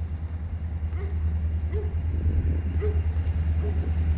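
Car running, a steady low rumble heard from inside the cabin, with faint short chirps about once a second.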